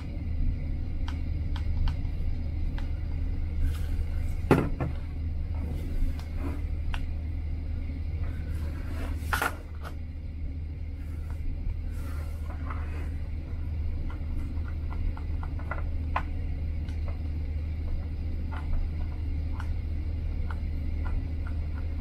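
Light clicks and a couple of sharper knocks from a mirrorless camera and a small infrared remote being handled on a tabletop, over a steady low hum.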